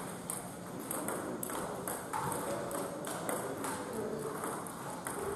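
Table tennis balls clicking against tables and paddles: irregular sharp ticks, several a second, from play going on around the hall.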